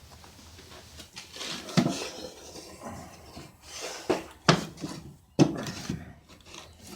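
Metal hardware being handled: clinks and clatter, with a few sharp knocks among the rustling.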